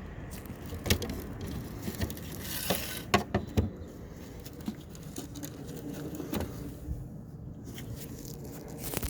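Sharp clicks and light knocks from plastic brake-light parts being handled and fitted, with a cluster of them about three seconds in, over a steady background hiss.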